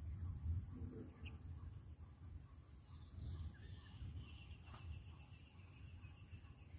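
Outdoor insect chorus: a steady, high-pitched drone of insects, over a low, uneven rumble.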